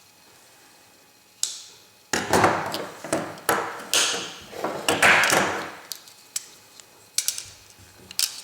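Steel multi-tools being handled as their can opener blades are pried out: sharp metallic clicks as the folding tools snap and lock, with scraping and rubbing in between.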